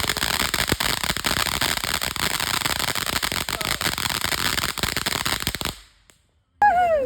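Consumer fireworks crackling densely and continuously, a rapid stream of small pops, which cuts off suddenly near the end. Just before the end, a loud pitched sound slides downward.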